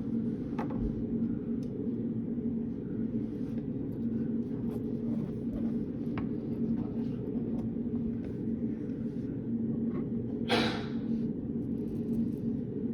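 Study-room ambience: a steady low hum with a faint tone in it, dotted with light clicks, and a brief rustle about ten and a half seconds in.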